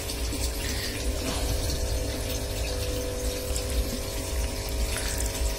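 A small pump running steadily with an even hum and a low rumble beneath.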